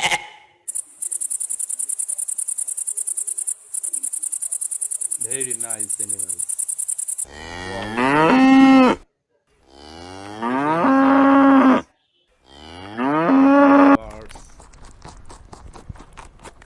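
A cow mooing three times, long calls one after another, each lasting about a second and a half. A high, fast-pulsing chirping runs for the first several seconds before the moos.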